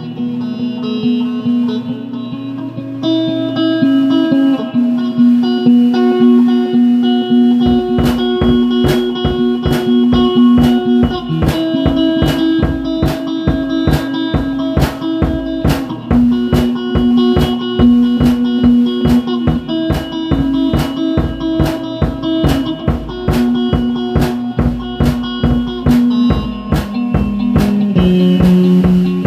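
Music: a guitar playing, joined by a drum kit about eight seconds in that keeps a steady beat.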